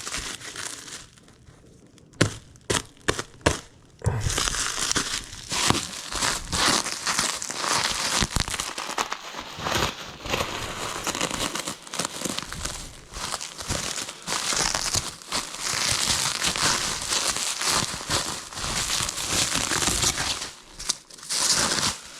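Packaging wrap being pulled off and crumpled by hand: a few sharp clicks, then from about four seconds in a dense, continuous crinkling and tearing.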